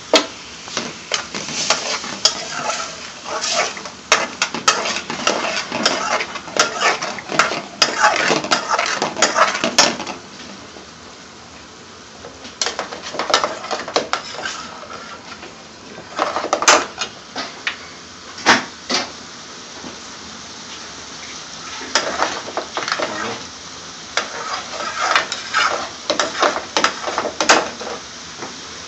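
Metal ladle scraping and clinking against a metal pan while stirring chicken tikka masala, in several bouts with pauses between. Under it, the sauce sizzles steadily as it cooks.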